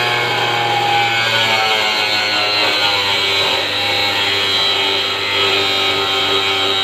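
Hand-held angle grinder with a cutting disc running as it cuts into the rim of a 250-litre blue plastic barrel. It gives a steady motor whine that sags a little in pitch about a second in.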